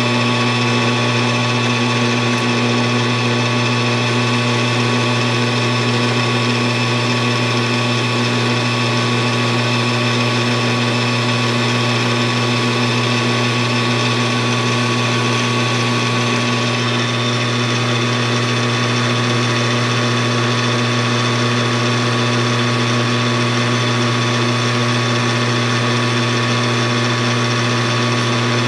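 Metal lathe running steadily: a constant low hum with several steady higher tones over it, as the tool turns a small model-engine lifter down in diameter.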